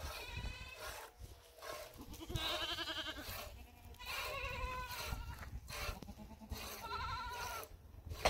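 Goats bleating, several wavering bleats about one to two seconds apart, the loudest a little over two seconds in.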